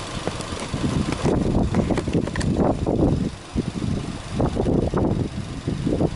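Subaru Legacy 2.0GT's turbocharged flat-four boxer engine running with the bonnet open, its sound swelling and dropping irregularly, with a brief dip about three and a half seconds in.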